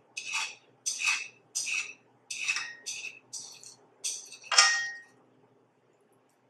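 Metal chopsticks scraping and tapping against a nonstick frying pan while stirring noodles: a run of short scrapes about two a second. They stop about five seconds in with the loudest stroke, which rings briefly.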